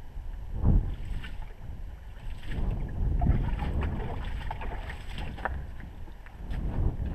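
Wind buffeting the camera microphone, a low rumble that swells in gusts, with a few faint clicks over it.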